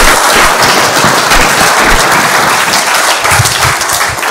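Audience applauding steadily: dense clapping from many hands.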